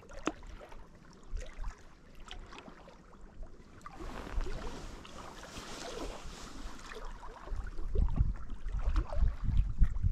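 Small waves lapping against the rocky shoreline, with scattered light clicks. Wind buffets the microphone, swelling about halfway through and rumbling more strongly near the end.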